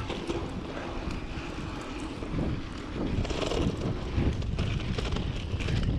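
Wind rushing over the microphone with a low rumble while a mountain bike rolls down a dirt trail, with scattered light rattles and ticks from the tyres and bike.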